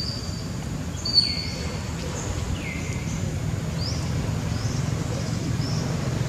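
Birds calling over a steady low background rumble: a few high whistled notes, two calls that slide downward in pitch in the first few seconds, then short rising chirps repeating through the second half.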